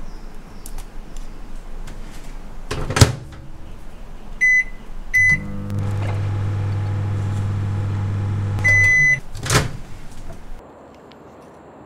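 Fork tips poking through a plastic food wrapper with light crinkling, then a microwave oven door shutting with a sharp clack. Two short keypad beeps start the oven, which runs with a steady low hum. A longer beep marks the end of the cycle and the door is popped open with another clack.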